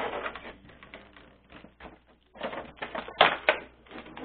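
Thin clear plastic toy packaging crinkling and crackling as it is handled. The crackles come in an uneven run and grow louder about two and a half seconds in.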